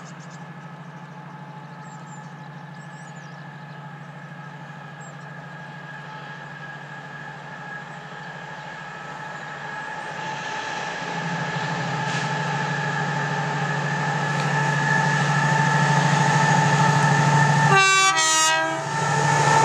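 Freightliner Class 70 PowerHaul locomotive approaching with an intermodal train. Its V16 diesel engine drone, with steady higher tones above it, grows steadily louder as the train nears. A brief horn blast sounds near the end as the locomotive reaches the platform.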